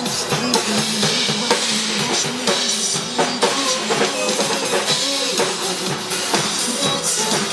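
A live band playing an instrumental passage of a pop song, driven by a steady drum-kit beat with kick drum and snare.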